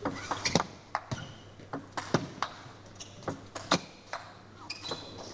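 Table tennis rally: the ball clicking sharply off the rackets and bouncing on the table in quick alternation, about two to three hits a second, until the rally ends near the end.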